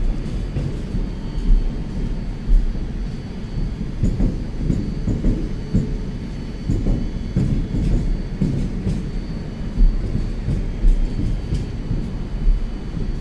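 Train running through a railway station: a loud, steady low rumble with short knocks every second or so.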